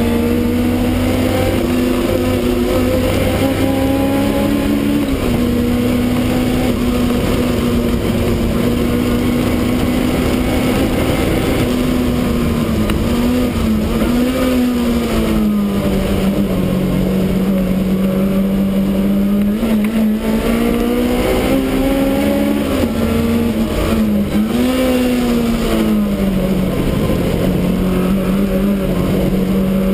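Supercharged BMW E30 race car's engine running hard, heard inside the stripped cabin. Its pitch holds mostly steady, then dips and climbs back a few times in the second half, one of these at a gear change.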